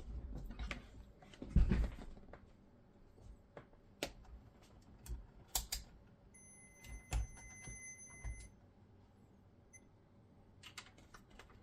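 Irregular clicks, taps and knocks of hands handling the plastic and metal parts of an Xbox Series X console during disassembly, with the loudest thump about a second and a half in.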